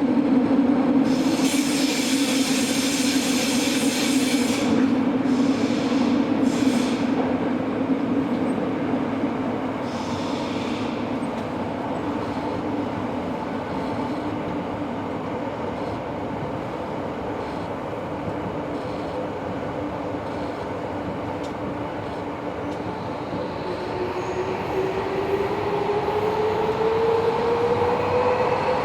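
Running noise inside a Tobu 70000 series subway car, with wheel squeal about a second in and shorter squeals a few seconds later. Near the end the traction motor's whine rises in pitch as the train accelerates.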